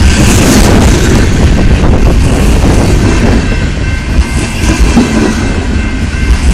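BNSF freight train's cars rolling past at close range: a loud, steady rumble of wheels on the rails.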